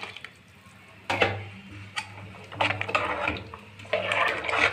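A metal ladle clinks sharply against the side of a pressure cooker pot a few times and scrapes through a thin chickpea gravy as it is stirred.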